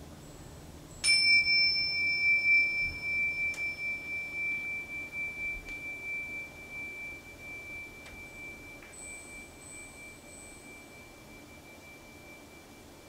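A single high, bell-like tone struck once about a second in, ringing clear and pure and dying away slowly over about ten seconds with a gentle pulsing beat.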